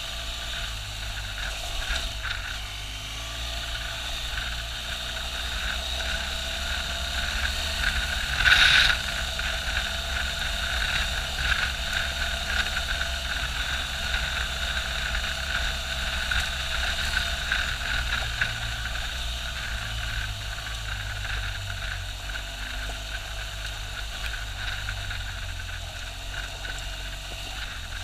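BMW R1200GS boxer-twin engine running at a steady riding pace, with tyre noise on a gravel track. There is a short louder noise about nine seconds in.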